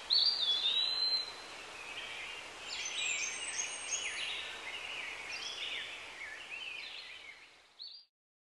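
Small birds chirping and whistling over a steady outdoor hiss of park ambience; it all stops shortly before the end.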